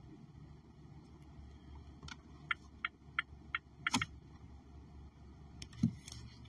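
Steady low rumble of distant road traffic, with a run of six sharp ticks at about three a second and two soft knocks from the phone being moved in the hand, the first about four seconds in.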